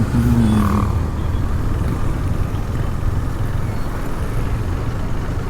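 KTM Duke 250 motorcycle on the move: a steady low engine and road rumble, with a short falling tone in the first second.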